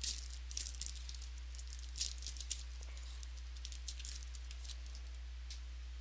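Trading cards and pack wrappers being handled: light crinkling and clicks in short clusters, most about a second in and again two seconds in, over a steady low electrical hum.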